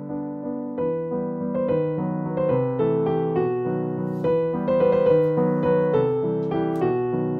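Background piano music: a gentle melody of sustained notes over a flowing accompaniment.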